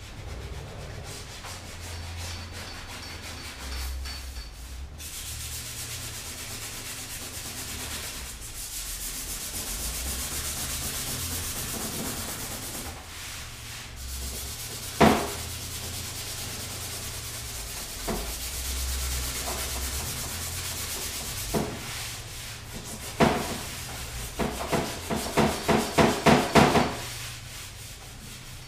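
Hand-sanding body filler on a Land Rover bonnet: continuous scratchy rubbing of abrasive paper over the filled panel. A sharp knock sounds about halfway through, and a quick run of about ten knocks comes near the end.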